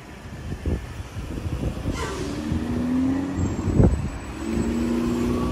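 Cars driving across a railroad grade crossing, their engines and tyres growing louder over the first few seconds, with a sharp thump a little before four seconds in as a car's tyres go over the rails.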